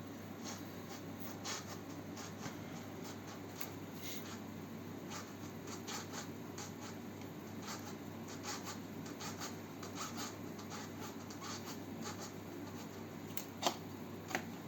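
Faint clicking and scraping of a 4 mm Allen key turning the handle's clamp screw anticlockwise on an e-bike handlebar, with two sharper clicks near the end.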